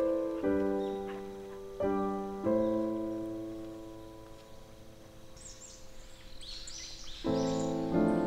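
Background piano music: slow chords struck and left to ring out, with one long fading chord through the middle. Birds chirp faintly from about halfway through.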